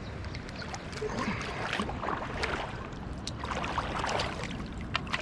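River water running, with splashing and sloshing as a hooked brown trout thrashes and is grabbed at in the shallows.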